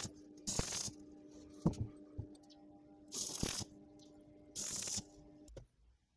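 Stick (MMA) arc welding in short tacks: four brief bursts of arc crackle, each under a second, with a steady hum and a couple of light taps between them, stopping shortly before the end.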